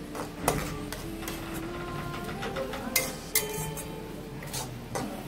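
Metal spatula scraping and knocking against an aluminium kadai while stirring a thick onion-tomato masala as it is sautéed, with several sharp clacks among the scraping.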